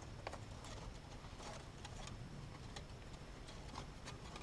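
Dead sticks clicking faintly as they are handled and wedged into a woven stick cage trap, a few scattered light clicks about a second apart.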